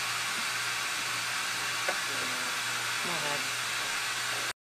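Steady hiss of moving air with a constant low hum, with faint voices and a light tap about two seconds in. The sound cuts off abruptly just before the end.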